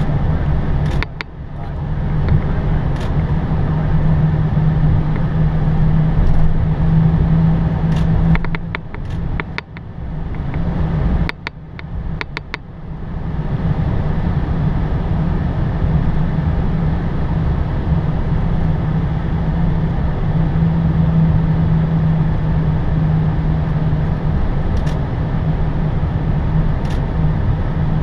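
Steady cockpit noise of an Airbus A320 rolling slowly after landing: engines near idle and airflow, with a steady low hum. The noise dips briefly about a second in and twice around the middle, with a few sharp clicks in those dips.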